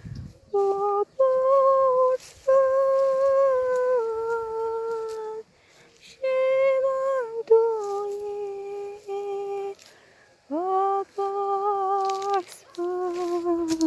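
A woman humming a slow, wordless melody in long held notes, with short breaths between phrases and a longer pause about two thirds of the way through.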